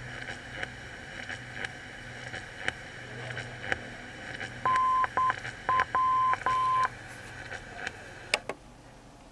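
Long-wave car radio tuned to 243 kHz, hissing and crackling with static. About halfway through, a steady beeping tone is keyed on and off in Morse-code dashes and dots, like a radio beacon's identifier. Two sharp clicks come near the end, and the static then turns quieter.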